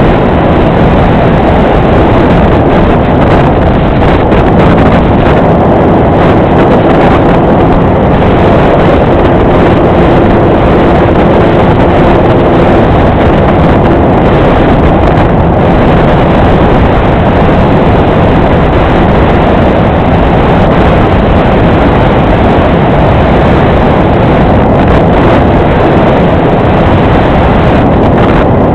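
Apprentice RC trainer plane in flight: a loud, steady rush of wind over the microphone mixed with the drone of its electric motor, with a faint steady tone coming through about ten seconds in.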